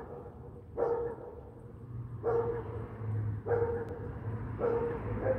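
An animal calling over and over, about five sharp calls a little over a second apart, each with a clear pitch. A steady low hum runs underneath and grows from about two seconds in.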